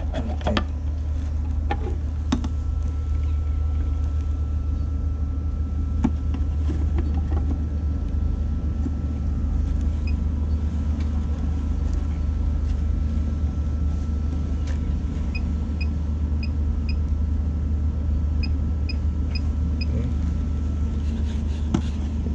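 Steady low machinery drone, as of a ship's engines or generators, with a faint steady whine over it. From about ten seconds in come short high pips in groups of three or four, about two a second.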